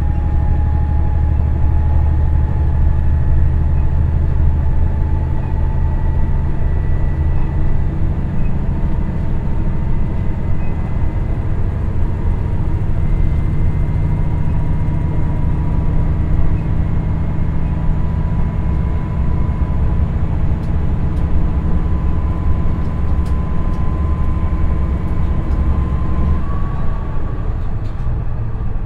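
Cabin sound of a KiHa 110-series diesel railcar (KiHa 112) with a Cummins engine, running between stations: a steady engine and wheel rumble with a whine that rises slowly in pitch and steps up near the end.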